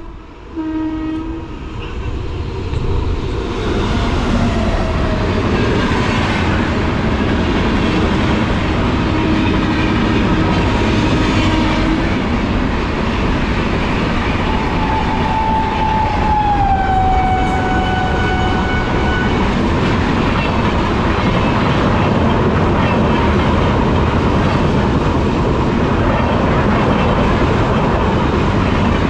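Express train hauled by a WAP-7 electric locomotive passing at speed. A short horn blast sounds right at the start and a longer one sounds about halfway through, dropping in pitch as it passes. Under both, the LHB coaches keep up a steady rumble and clickety-clack over the rail joints.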